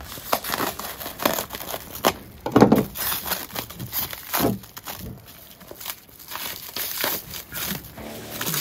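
Plastic wrapping on a packet of parts crinkling as it is handled and pulled at, in a run of irregular rustles and crackles.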